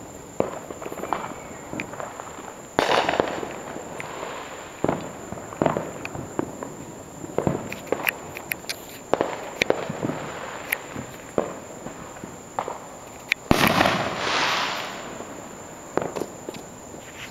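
Consumer fireworks going off all around: many scattered sharp pops and bangs at irregular intervals. Two heavier booms, about three seconds in and again near the end, rumble on for a second or more.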